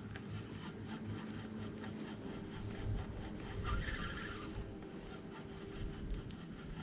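A spinning reel being cranked steadily to retrieve a surface frog lure, making a low, even whirr, with wind rumbling on the microphone.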